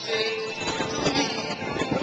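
Music playing, with a held note near the start.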